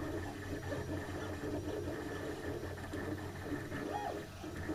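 MakerBot Replicator 2X 3D printer running: its stepper motors whir in shifting tones over a steady hum, with a short rising-and-falling whine about four seconds in.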